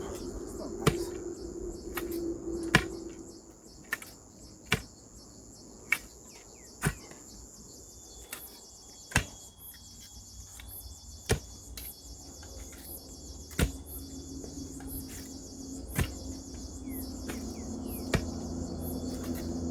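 A digging tool chopping into rain-softened soil, a sharp strike about every two seconds. Insects buzz steadily and high in the background.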